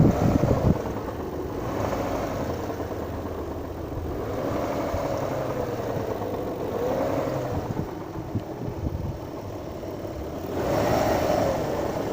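Kia Magentis 2.5's engine running warm, its speed rising and falling several times as the throttle is blipped. A faint knock, barely audible at idle, grows with the revs; the owner judges it does not sound like a connecting rod.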